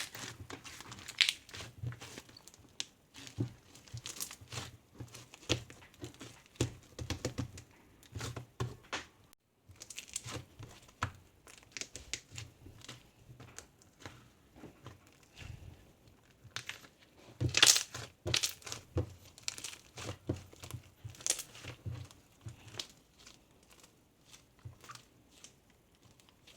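Irregular crinkling and crumpling, like paper or plastic being handled, with a brief pause about nine and a half seconds in and a louder flurry past the middle.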